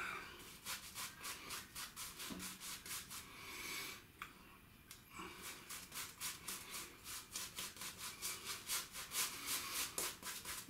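Silvertip badger shaving brush (Alpha Shaving Outlaw, 28 mm) scrubbing wet soap lather over the face in quick back-and-forth strokes, about four a second, with a short pause about four seconds in.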